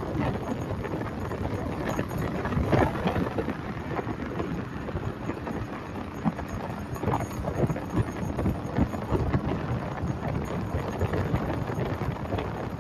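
A vehicle on the move: steady road rumble with wind buffeting the microphone and uneven low thumps.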